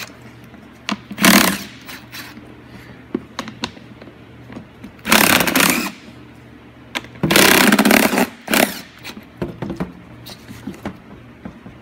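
A cordless battery screwdriver whirring in several short runs of up to about a second, backing out the 8 mm fasteners that hold a GM truck's plastic air box together. Small clicks come between the runs.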